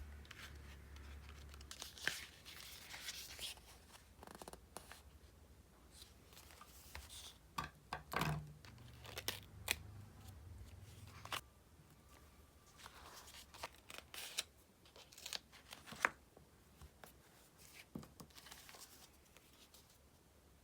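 Stickers being peeled off their backing sheet and pressed onto diary paper: a string of short peeling and paper-rustling rasps with a few sharp clicks.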